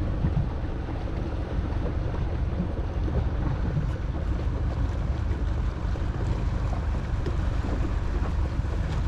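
Steady wind rumbling on the microphone aboard a small fishing boat at sea, with waves washing against the hull.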